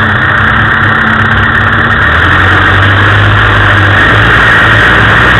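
Land Rover engine running steadily while driving off-road through mud, heard loud from inside the cab; the engine note changes about two seconds in.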